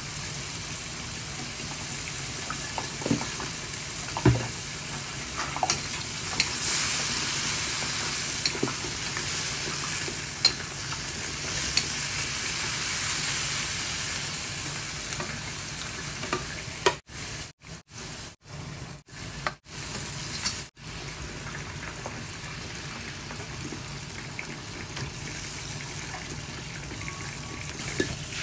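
Vegetables stir-frying in a hot wok with a steady sizzle, while a metal spatula scrapes and knocks against the pan now and then. The sound cuts out briefly several times about two-thirds of the way through.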